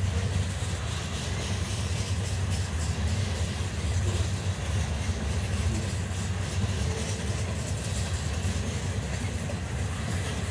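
Freight train of covered hopper cars rolling slowly past, a steady low rumble of steel wheels on the rails with faint scattered clicks.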